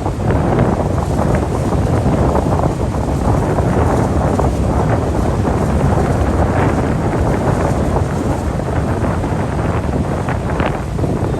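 Loud, steady wind buffeting the microphone aboard a river ferry under way, a rough low rumble.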